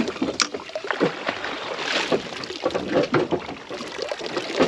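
Water slapping and splashing against the side of a small fishing boat, with short irregular knocks.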